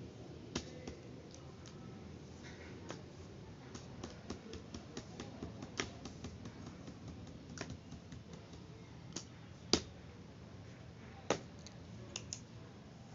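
Plastic marker pens and a highlighter set down one by one on paper over a cardboard box: scattered light clicks and taps, with one sharper click about ten seconds in.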